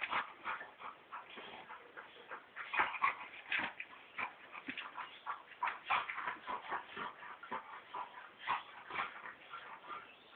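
Two dogs play-wrestling, with a rapid, irregular string of short yips and whines.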